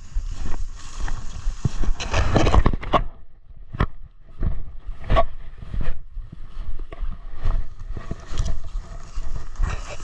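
Footsteps crunching and brush rustling at an irregular pace as people walk through dry cover, with a denser patch of rustling about two seconds in, over a low rumble.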